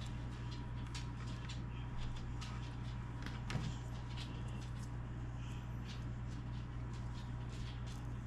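Faint clicks and light crackles of tape and thin wires being handled while the splices of a subwoofer's speaker and plate-amp leads are taped, over a steady low hum.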